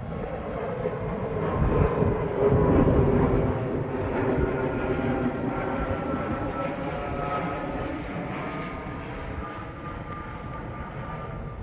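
Airbus A320neo jet airliner's engines passing close by, loudest about two to three seconds in and then slowly fading, with a high whine that sinks slightly in pitch as the aircraft moves away.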